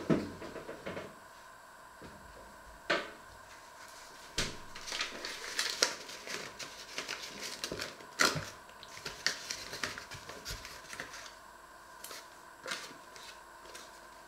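Paper bag crinkling and rustling as it is handled and opened, mixed with several sharp knocks and clicks.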